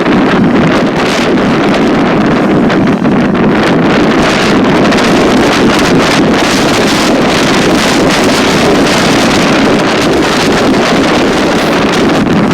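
Strong wind buffeting the microphone: a loud, steady rushing.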